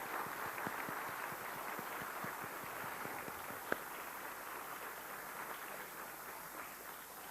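Audience applauding, faint and thin, slowly dying away towards the end, with one sharper click a little past the middle.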